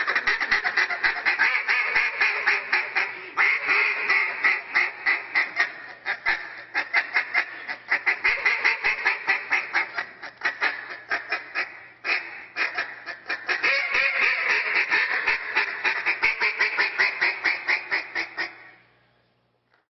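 Duck call blown by a competition caller: a long unbroken run of rapid quacks, several a second, fading out about a second and a half before the end.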